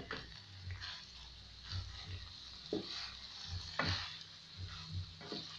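Wooden spoon stirring and scraping omena (small dried fish) mixed with onion and tomato paste in an aluminium pot, in irregular strokes roughly a second apart.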